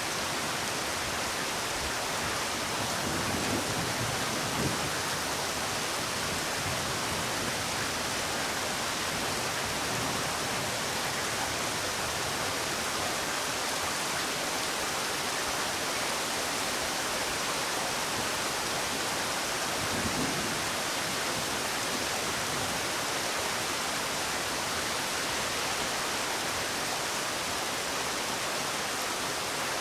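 Steady rain falling, an even hiss of many drops, with a few soft low thumps about four seconds in and again about twenty seconds in.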